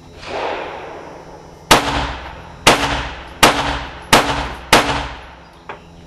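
Five 9mm Para pistol shots fired in quick succession, about a second apart at first and closing to about two-thirds of a second. Each shot rings in the enclosed range. A softer rush of noise comes just before the first shot, and a small click follows near the end.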